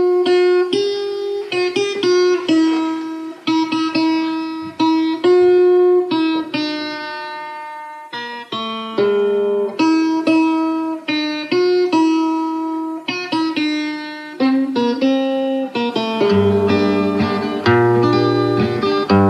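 Instrumental song introduction: a lead melody of single plucked-sounding notes, each starting sharply and dying away. A bass line and fuller accompaniment join about sixteen seconds in.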